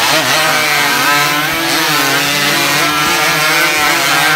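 Several chainsaws running together, cutting through logs, with a loud, steady engine note.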